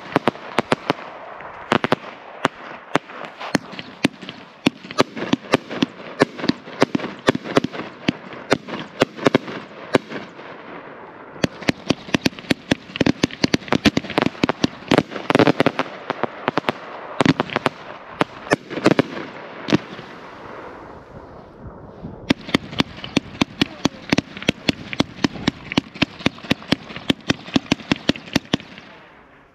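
A 50,000-gram 1.4G compound firework cake firing a dense, rapid barrage of shots and bursts, several a second. The barrage dies away near the end as the cake finishes.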